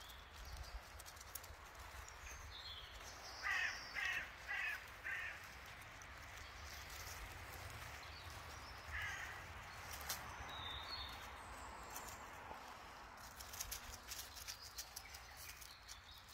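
A bird calls four times in quick succession a few seconds in, and once more around the middle, over faint high chirping of small birds. Light rustling and ticking near the end.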